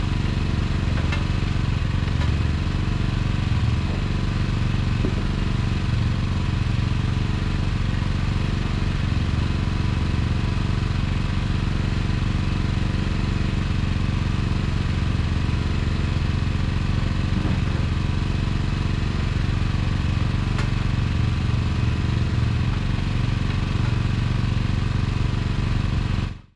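Small engine running steadily at an even speed, with a few faint knocks over it; the sound cuts off abruptly at the end.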